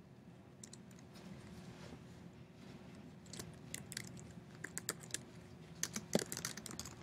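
Faint typing on a computer keyboard: scattered keystrokes in short quick runs, bunched mostly in the second half, as a search term is typed in.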